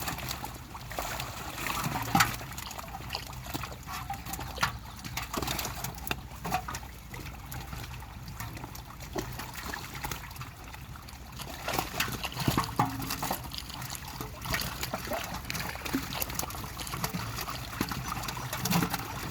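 Pond water trickling and splashing in short, irregular splashes as a fishing net is worked in the water.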